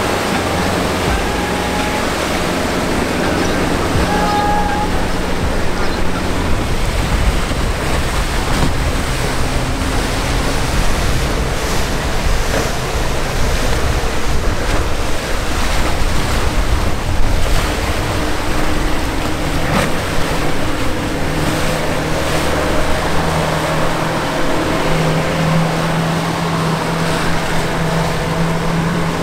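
Churning, choppy canal water and boat wakes rushing steadily, with the steady hum of outboard motors on passing boats heard over it early on and again near the end, and some wind on the microphone.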